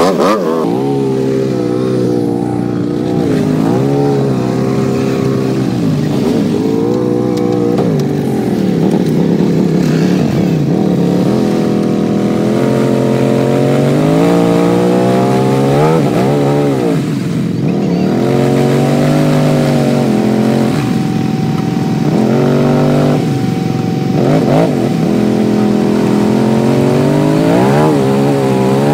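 ATV engine revving up and down over and over, the pitch rising and falling every few seconds as the quad strains through deep mud.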